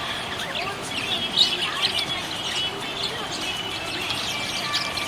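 Small pet parrots chirping and chattering, with many short, overlapping chirps and quick rising and falling calls.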